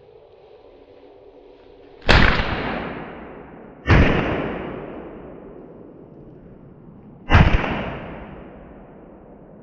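Three shots from a Stoeger semi-automatic shotgun: about two seconds in, again under two seconds later, and a third about three and a half seconds after that. Each is very loud and followed by a long, slowly fading echo.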